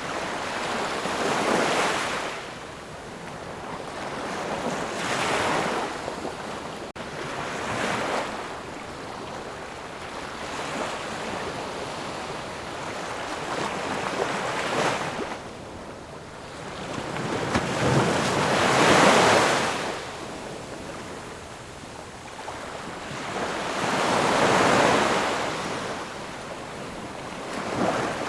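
Ocean surf: waves swell and break one after another every few seconds over a constant wash of hiss. The biggest break comes about two-thirds of the way through.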